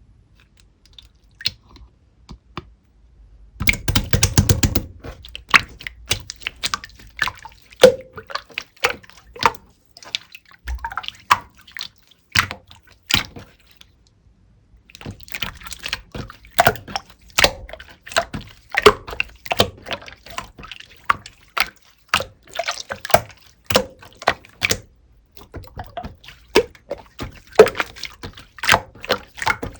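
Clear slime squished and poked by hand, making rapid, irregular wet clicks and pops, with a short pause about halfway through.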